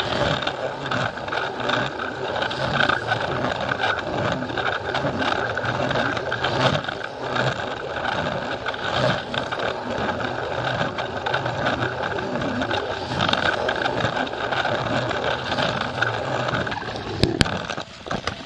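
Battery-powered Plarail toy train running along plastic track: a steady motor-and-gear whir with frequent small clicks and rattles.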